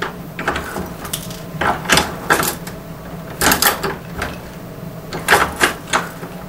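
Lee Precision Pro 1000 progressive reloading press being cycled by its handle to dispense the last powder charges from the auto disk into empty cases: sharp metallic clacks and clicks in about four clusters of two to four strokes.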